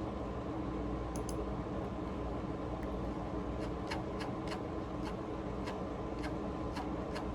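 Steady room hum with faint, irregular clicks scattered through it, about a dozen.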